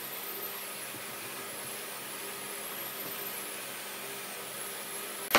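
Steady, even hiss of workshop background noise, then a sharp knock of wood near the end as the timber is handled against the bench frame.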